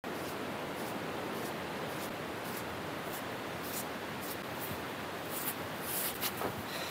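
Steady wind noise with footsteps crunching in snow, about two a second, coming in from about halfway and growing louder toward the end.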